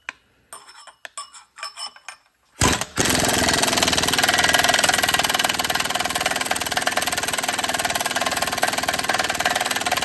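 Light clicks and knocks of a socket being fitted, then about two and a half seconds in a pneumatic impact wrench starts and hammers steadily at rapid rate on the crankshaft nut of a Predator 212 engine. The hammering ends with the nut tearing the threads off the end of the crankshaft.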